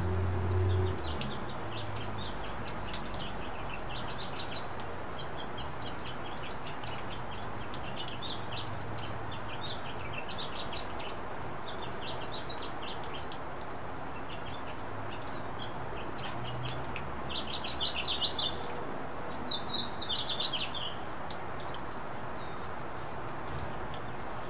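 Steady rain falling with fine drip ticks, while small birds chirp on and off throughout, loudest in two quick bursts about 18 and 20 seconds in. A low rumble is heard in the first second.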